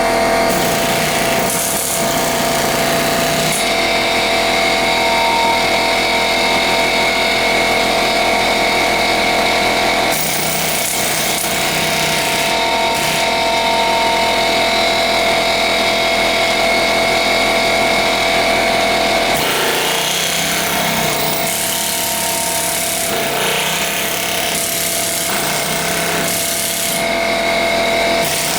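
Aircat long-stroke pneumatic air hammer (air chisel) hammering continuously into masonry: rapid, loud chattering blows with a steady metallic ring over them. The tone of the hammering changes a couple of times along the way.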